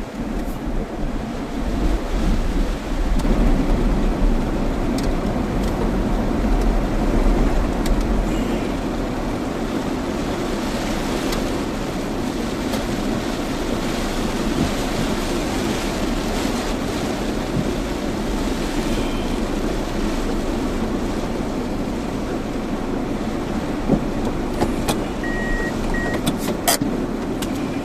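Steady roar of typhoon-force wind, buffeting the microphone with a heavy low rumble for the first several seconds. Two short high beeps sound near the end.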